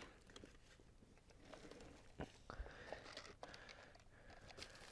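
Near silence: room tone with a few faint clicks and light rustling near the middle.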